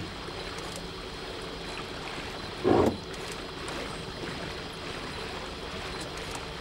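Boat underway on a river: water washing and rippling past the hull over a steady low hum. One short, loud burst cuts in almost three seconds in.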